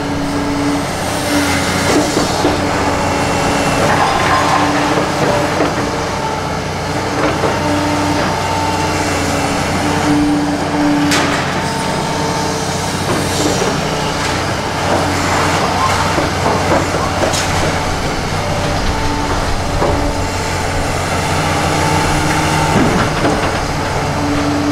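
Liebherr 946 hydraulic excavator working: the diesel engine runs steadily under load while a steady hydraulic tone comes and goes. Crunching and a few sharp cracks come from the house being torn down.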